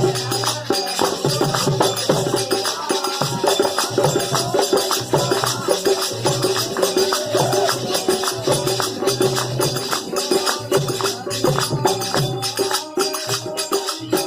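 Music with jingling hand percussion in a quick, steady rhythm over a held drone note.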